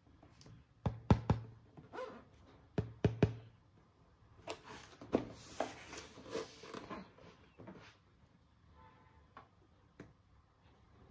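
Toy packaging being handled: two quick groups of sharp plastic clicks and knocks, then a few seconds of rustling with more clicks.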